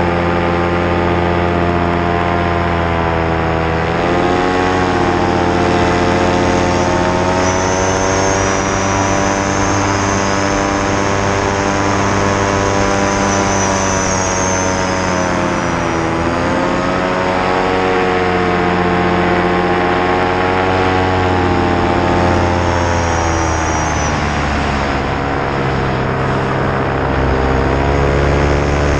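Paramotor engine and propeller running steadily, the pitch dipping briefly as the throttle is eased about four seconds in, again near the middle, and once more about three-quarters of the way through.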